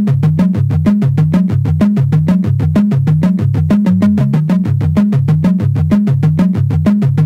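Background electronic music: a fast, even synthesizer pulse over a repeating bass line.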